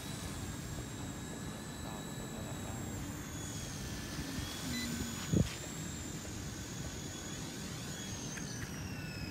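K127 RC helicopter's motor and rotor whining high and steady in flight, shifting in pitch, then winding down near the end as it sets down. A single thump about five seconds in.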